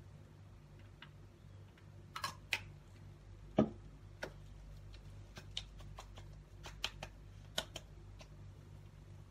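Small scattered clicks and taps from handling a plastic skincare bottle and applying its contents to the face, the sharpest click about three and a half seconds in, over a low steady hum in the room.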